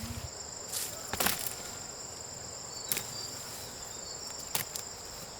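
Insects chirring in a steady high-pitched chorus, with a few sharp knocks: two close together about a second in, one near three seconds and one near four and a half seconds.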